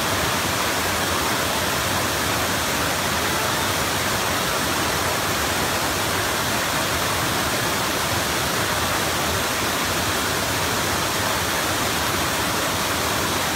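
Water rushing steadily over a wide, stepped rock cascade waterfall, an even, unbroken sound of falling water.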